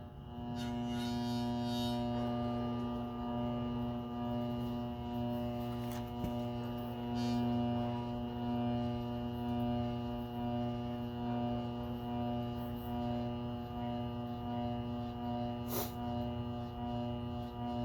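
Treadmill DC motor, run from the treadmill's control board on 120 volts, spinning at a steady speed with an even electric hum and whine. A couple of brief ticks come through around a third of the way in and near the end.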